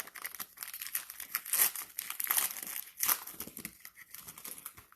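Cellophane wrapper of a trading card cello pack being torn open and crinkled by hand, in irregular crackling rustles.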